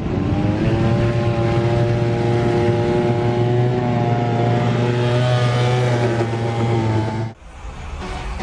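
Small brush-cutter engine driving an RC boat, running steadily at high speed with slight wavers in pitch, then cutting off suddenly about seven seconds in.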